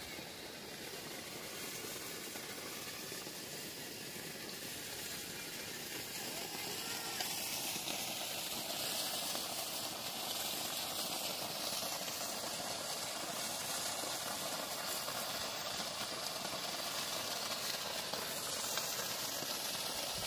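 Waterfall pouring over a cliff edge: a steady rush of falling water, growing louder about a third of the way in and then holding.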